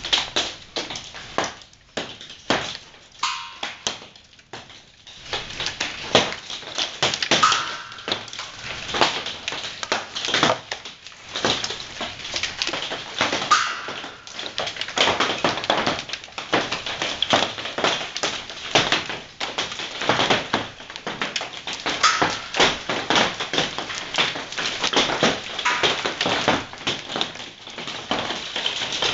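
Hailstones pelting down, a dense, irregular rattle of countless sharp taps. It thins out briefly a couple of seconds in, then thickens again into a near-continuous clatter.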